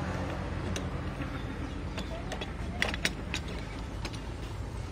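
Scattered metallic clicks and light clanks as a Honda EX5 clutch assembly is pushed by hand onto its shaft and its gear meshes with the engine's gears, the loudest pair of clicks about three seconds in. A steady low hum runs underneath.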